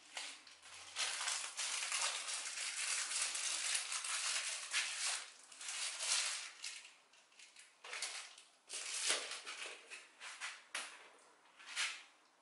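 Crinkly rustling of something being handled, in irregular spurts, with a sharper rattle near the end.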